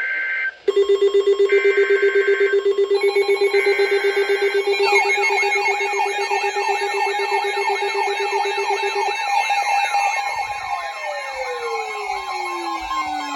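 Several emergency alert tones sounding over one another for a severe thunderstorm warning. A rapidly pulsing buzz starts just under a second in, with steady alert tones over it. From about five seconds in a repeating, warbling siren-like sweep joins, and near the end one tone glides steadily down in pitch.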